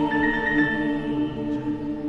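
Youth choir holding a sustained chord at the close of a song, cutting off right at the end.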